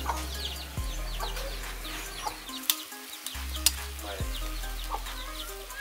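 Chickens clucking, with many short, high falling peeps, and two sharp clicks a second apart near the middle.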